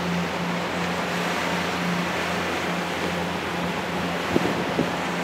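Ferry's engine droning steadily with a pulsing hum, over the wash of water and wind on the microphone. Two brief clicks near the end.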